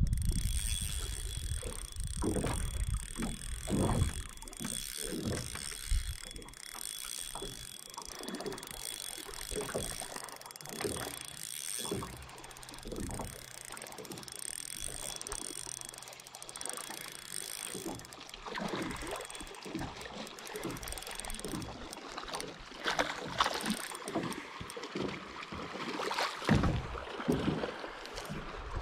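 Water lapping and sloshing against a small boat's hull, with irregular small splashes and knocks.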